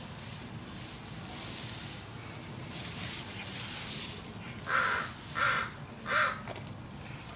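Crow cawing three times in quick succession, short harsh calls about two-thirds of a second apart.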